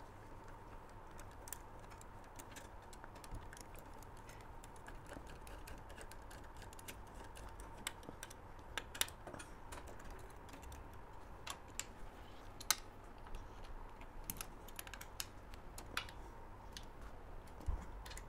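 Faint, irregular metallic clicks of an Allen key turning M8 cap screws by hand as they thread up through the kart chassis into the engine mounts. A faint steady hum runs underneath.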